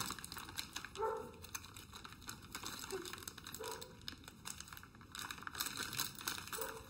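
Small clear plastic bag of nuts and bolts crinkling as it is opened and handled, in irregular faint rustles.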